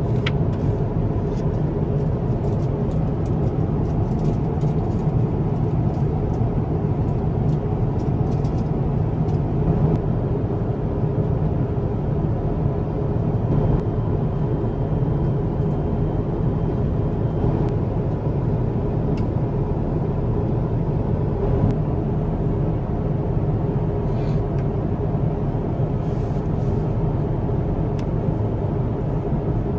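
Steady drone of engine and airflow noise heard inside the cabin of an Airbus A350-1000 airliner, with a few faint ticks.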